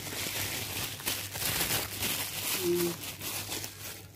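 Plastic packaging and bubble wrap rustling and crinkling as they are handled, an irregular scratchy crackle.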